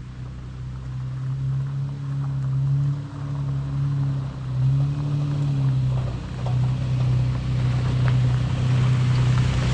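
Toyota FJ Cruiser's 4.0-litre V6 engine running while driving, its note dipping and rising a few times with the throttle, over steady road noise.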